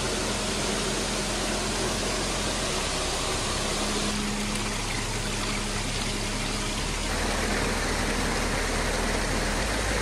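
Steady rush of falling water from a waterfall and small stream cascades over rocks. Its tone shifts slightly about four and seven seconds in.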